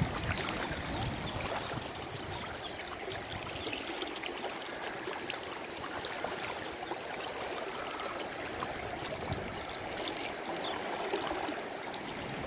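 Muddy river water rushing and splashing steadily around people wading waist-deep through the current, with many small splashes.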